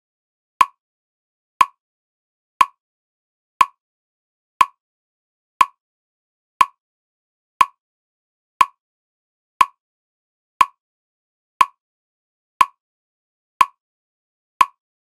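Metronome ticking at a steady one click per second, about fifteen short, sharp clicks with silence between them.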